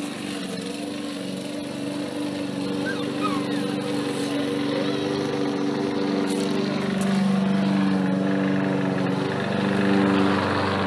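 Walk-behind gasoline lawn mower engine running steadily, getting somewhat louder over the second half.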